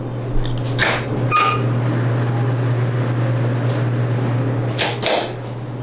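Steady low mechanical hum, with a few short clicks and knocks over it.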